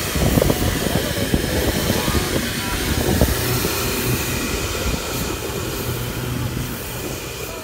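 Wind buffeting a phone's microphone in uneven rumbling gusts, with a faint steady low hum underneath.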